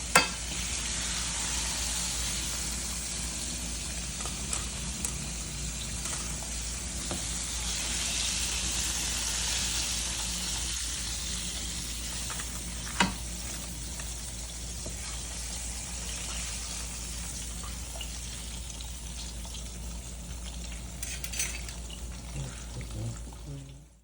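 Chicken pieces in hot frying oil, a steady sizzle, as the cooking finishes and the chicken is lifted out. Two sharp knocks, one near the start and one about halfway, with a few lighter clicks near the end.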